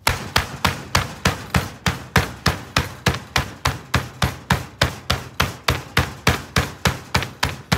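Meat mallet repeatedly pounding a raw ribeye steak flat on a plastic cutting board, with the textured tenderizing face striking the meat. The blows come quickly and evenly, about four a second.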